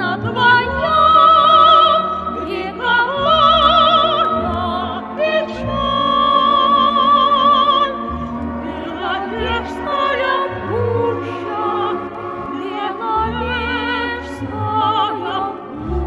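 Operatic singing over instrumental accompaniment: a voice holds long notes with a wide, regular vibrato.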